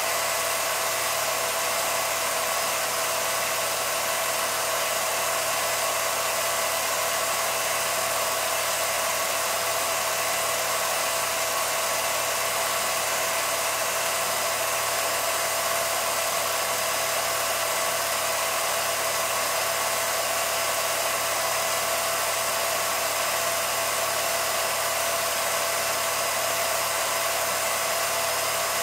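An 8mm film projector running: a steady motor whir and fan hiss with a constant high whine that does not change.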